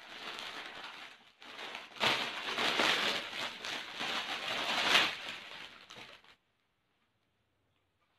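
Plastic packaging crinkling and rustling as a saree is unwrapped and pulled out of its bag, loudest in the middle, then cutting off suddenly about six seconds in.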